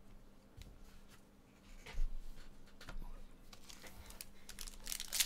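A foil trading-card pack being handled, torn open and crinkled by hand. A few light clicks and taps come first, then the crinkling grows denser and louder toward the end.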